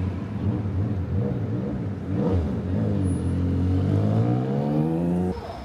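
A motorcycle engine running and accelerating, its pitch climbing over the last second and a half, then cutting off suddenly just before the end.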